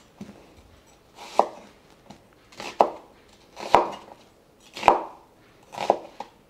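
Chef's knife cutting a whole onion into wedges on a wooden cutting board: five separate cuts about a second apart, each ending in a knock of the blade on the board.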